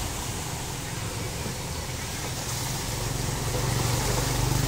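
Small step-through motorbike engine running as it rides through floodwater, a steady low hum that grows louder over the last second or two as it comes closer.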